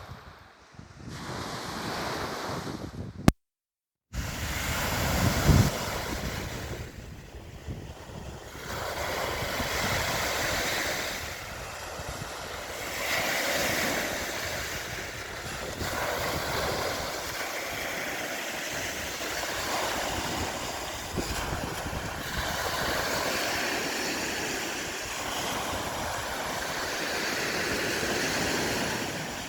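Waves washing onto the sandy shore of Lake Nyasa (Lake Malawi), the surf swelling and easing every few seconds, with wind buffeting the microphone. About a second of complete silence cuts in near the start.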